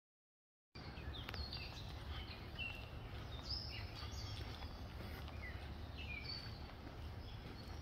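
Small birds chirping in short, rapid calls over a steady low outdoor rumble; the sound cuts in just under a second in, after dead silence.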